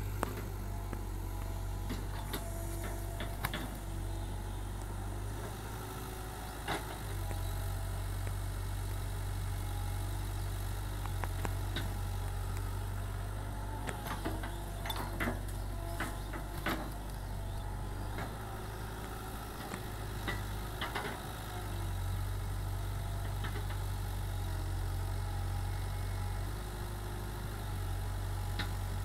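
Cat 313B crawler excavator's diesel engine running steadily under digging load, with scattered short clanks and knocks from the bucket and arm working.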